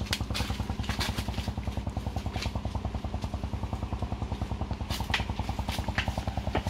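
A small engine running steadily with a rapid, even putter, with a few short crunches of dry leaves underfoot.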